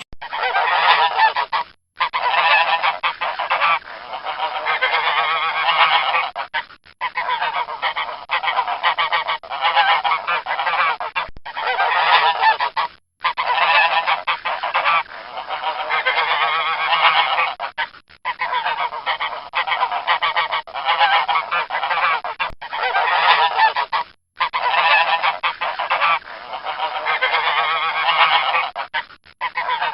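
Geese honking continuously, many calls overlapping, with a few brief gaps where the sound cuts off suddenly and starts again.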